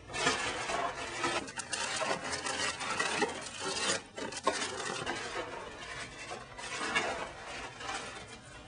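Hands rummaging in a Honeycomb cereal box, the plastic bag liner crackling and rustling and the cereal pieces rattling; it starts suddenly and fades near the end.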